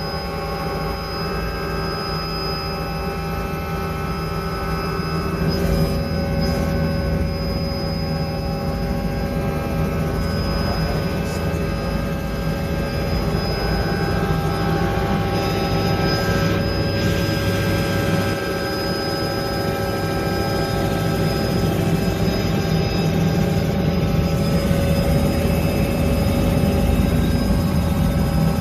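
Helicopter turbine and rotor running steadily in flight, heard from inside the cabin, with a constant high whine over a deep drone.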